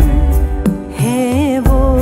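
Hindi devotional song: a sung melody over bass-heavy backing music with a regular beat.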